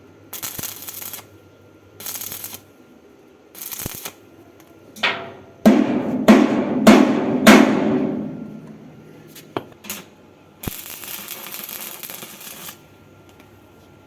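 Short bursts of stick-welding arc crackle, built up on a broken nut to free it. Between them, about halfway through, come four loud knocks roughly half a second apart, each with a ringing tail.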